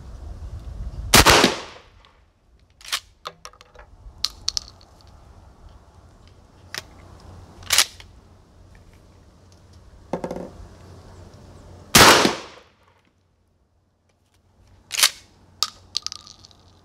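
12-gauge Mossberg 535 pump-action shotgun firing full-charge factory slugs: two loud shots, one about a second in and one about twelve seconds in, each with a short echoing tail. Lighter sharp clicks and cracks fall in between and near the end.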